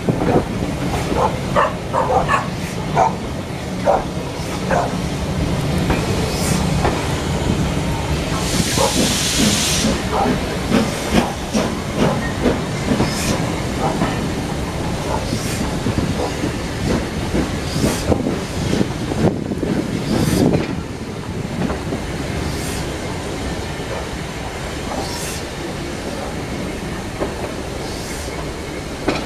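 Steam-hauled passenger train running, heard from an open carriage window: a steady low rumble with wheels clicking over rail joints, and a hiss of steam lasting about a second and a half roughly a third of the way in.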